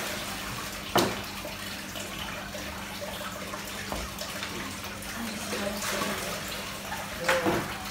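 Water running and splashing steadily, over a steady low hum, with a sharp knock about a second in.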